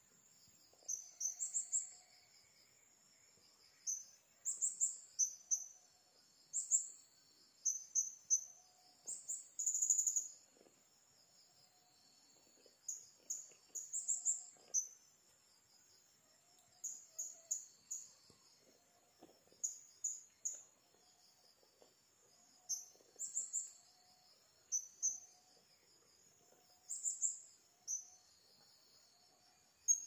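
Blue-crowned hanging parrots (serindit) calling: short, very high-pitched chirps in quick runs of two to five, repeating every second or two, over a faint steady high insect trill.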